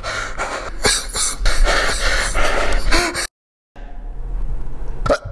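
Sounds of a struggle: gasping and pained cries from a beaten man, mixed with thuds and the rustle of bodies and clothing. The sound cuts out completely for a moment a little past three seconds in, then resumes.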